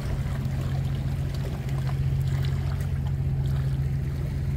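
A steady low engine hum with an even, unchanging pitch, under a faint wash of water.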